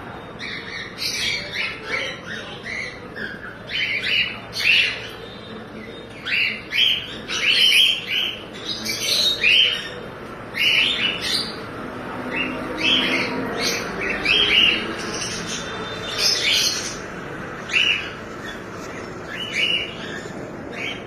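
A colony of cockatiels and budgerigars calling: many short squawks and chirps, overlapping and irregular, with no let-up.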